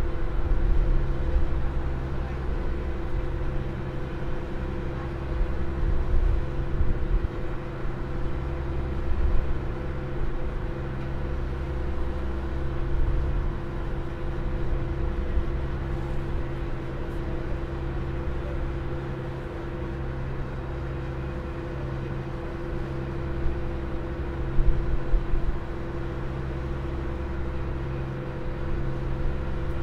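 Open car ferry underway: its engines drone steadily, with an even hum and a deep low rumble that swells and eases every few seconds.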